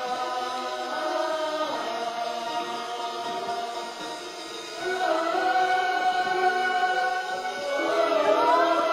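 Musical theatre number: a choir singing long held notes that glide up and down between pitches, swelling louder about five seconds in.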